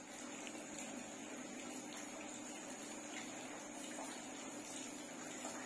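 Faint steady hiss and hum of room tone, with a few light pencil strokes scratching on paper.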